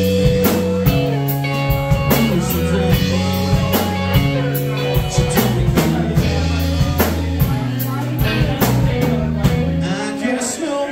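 Live rock band playing: electric bass, electric guitar and drum kit keeping a steady beat. The low bass notes drop out near the end.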